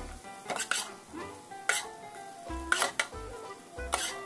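A spatula and a wire-mesh strainer scraping and knocking against a nonstick frying pan as stir-fried vegetables are scooped out, in a handful of sharp strokes, over background music.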